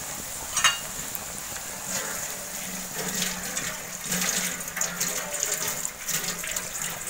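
Shallots and curry leaves sizzling in hot coconut oil in an iron kadai, a steady hiss with crackling that grows busier about three seconds in. One sharp click about half a second in.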